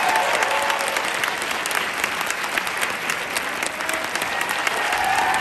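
Audience applauding: a dense, steady clatter of many hands clapping, with a few voices rising above it near the start and again near the end.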